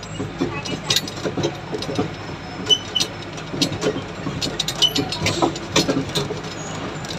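Kiddie amusement ride running, heard from inside the ride car: a low motor hum under irregular rattles and clacks from the car, with a few short high chirps.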